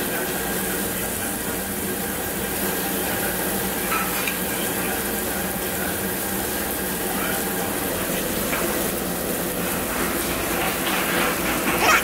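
Pork sizzling on a tabletop barbecue grill over a steady low hum.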